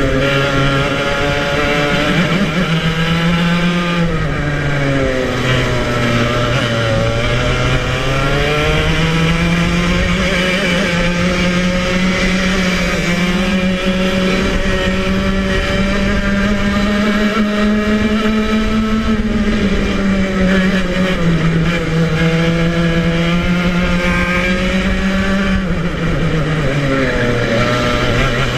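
Club100 115cc TKM two-stroke kart engine, heard close up from the kart's own seat, running hard at high revs. Its pitch rises and falls with the throttle, dropping several times as the kart slows and climbing again as it accelerates away.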